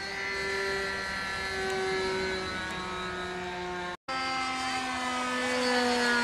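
A radio-controlled model aeroplane flying overhead, its motor and propeller giving a steady pitched drone that slowly falls in pitch as it passes. The sound drops out briefly about four seconds in at an edit cut, then another pass picks up with a drone that also sinks gently in pitch.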